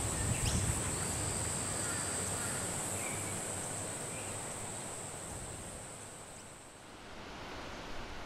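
Night forest ambience: a steady high-pitched insect drone over a soft wind-like hiss, with a few faint chirps, all fading away about seven seconds in.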